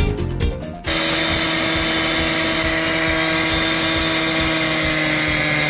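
Brief background music, then a gas-powered cut-off saw starts cutting a concrete sidewalk about a second in and runs steadily at full speed, a loud, even grinding whine.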